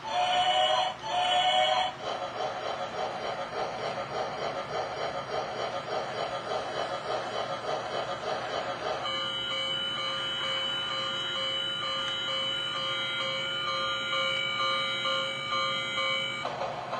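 Model steam locomotive's electronic sound system: a whistle sounding for the first two seconds with a short break, then a rhythmic chuffing as the engine runs, then a long steady whistle chord from about nine seconds in that cuts off near the end.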